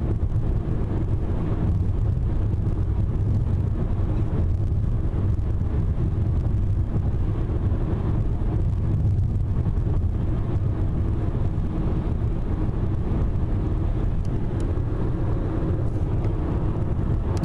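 Steady road and engine noise heard from inside a car cruising on a highway, mostly low in pitch and unchanging throughout.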